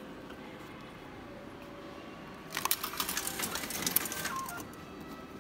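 Automatic ticket gate feeding two inserted paper tickets through its reader, a rapid mechanical clattering that starts about two and a half seconds in and lasts about two seconds.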